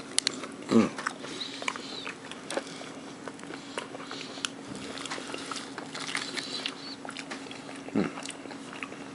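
A person chewing and biting fried chicken close to the microphone: scattered small crunches and clicks from the breading, over a steady low hum. Two brief low vocal sounds come about a second in and again near the end.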